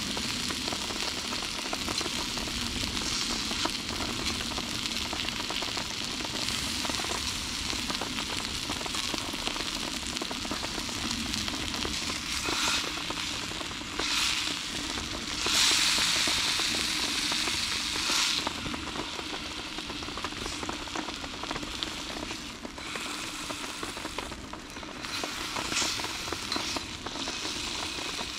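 A venison loin and garlic slices sizzling steadily in hot fat in an iron frying pan. The sizzle surges louder a couple of times around the middle as the meat is turned with a fork onto a fresh side.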